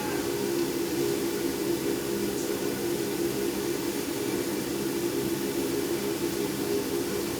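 Steady mechanical hum with an even rushing noise underneath, holding at one level throughout.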